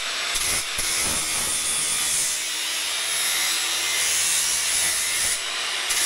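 Large angle grinder running under load, its disc grinding a broken steel plow part to prepare it for welding. The grinding is steady and eases briefly twice as the disc comes off the metal.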